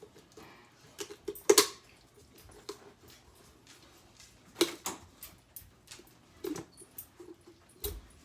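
Kitchen shears cutting along a raw turkey's backbone: a handful of separate snips through bone and cartilage, the sharpest about a second and a half in and near five seconds.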